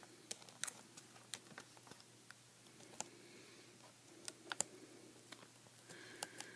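Faint, irregular small clicks and taps of hands handling a replacement laptop LCD panel and its video cable connector.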